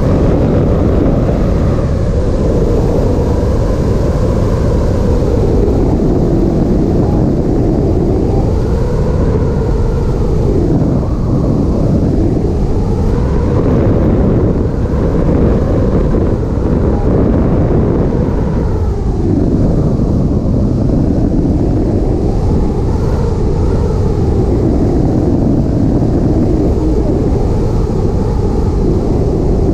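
Loud, steady rush of airflow buffeting the microphone of a hang glider in flight, swelling and easing a little now and then.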